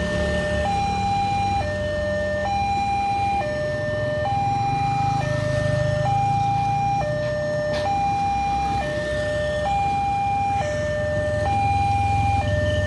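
Railway level-crossing warning alarm sounding its electronic two-tone signal, a lower and a higher tone alternating, each held just under a second, the warning that a train is coming. Motorcycle engines rumble low underneath.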